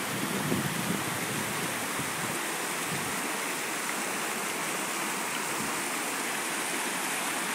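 Mountain valley stream flowing: a steady rush of water.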